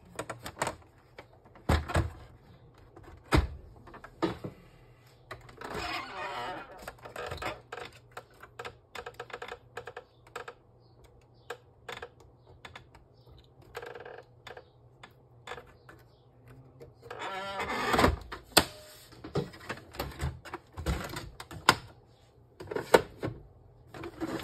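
Plastic clicks, knocks and scraping from an Epson L3150 printer's housing and parts being handled and fitted back together, with several sharp knocks and a louder stretch of rubbing and clatter about three-quarters of the way through.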